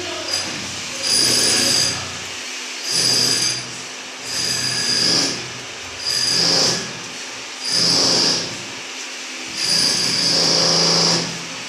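A power tool run in short repeated bursts, six in all about a second and a half apart, each with a high whine.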